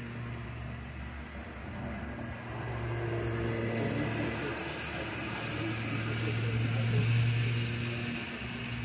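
Model train running on a layout: a steady low hum that grows louder as the locomotive and its cars pass close, loudest about seven seconds in.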